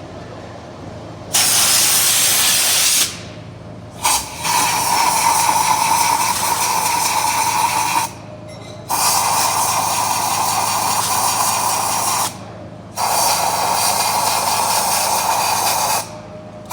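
Compressed air hissing from a blow gun in four long bursts with short pauses between them. This is typical of blowing air through a cylinder head's ports during a valve leak check.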